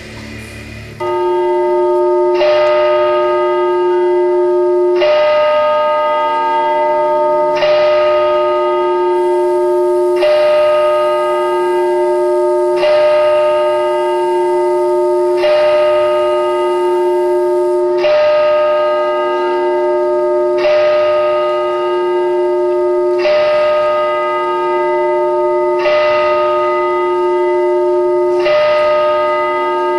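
A bell tolling at a slow, even pace, about one stroke every two and a half seconds, each stroke ringing on into the next.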